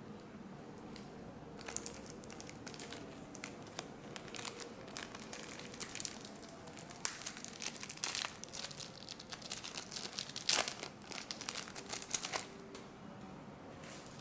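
Plastic trading-card packet wrapper crinkling and tearing as it is ripped open and handled: a dense run of crackles starting about two seconds in, loudest about three-quarters through, and dying away shortly before the end.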